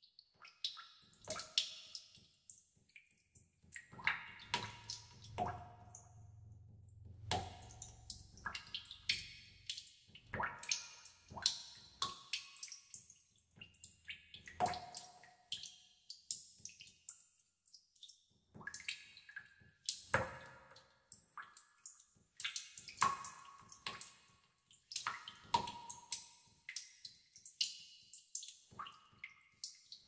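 Water drops falling one at a time into a pool in a cave, each a sharp plink, some with a short ringing pitch and echo. They come irregularly, at times two or three a second. A faint low rumble sits under them for a few seconds near the start.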